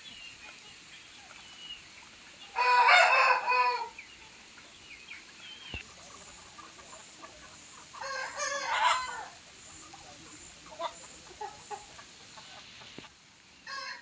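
A rooster crows twice, each crow lasting just over a second, about five seconds apart, with scattered short clucks afterwards.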